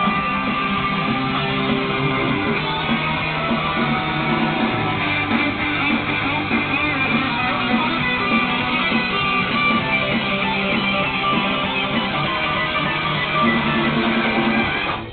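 Background music: a guitar-led song passage without vocals, playing steadily.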